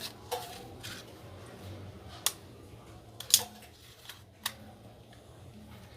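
Four sharp, spread-out mechanical clicks from a P1911 airsoft pistol being handled. The loudest comes a little past three seconds in.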